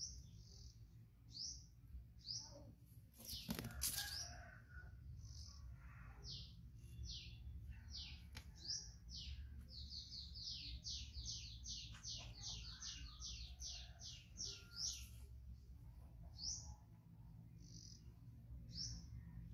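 A small bird chirping: short falling chirps about a second apart, then a quick run of about three a second for several seconds before slowing again. A brief clatter about three and a half seconds in is the loudest sound, over a steady low hum.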